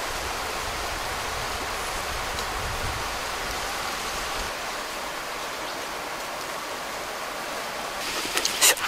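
Steady outdoor hiss with a low rumble in the first half that drops away about halfway through. Several sharp clicks come near the end.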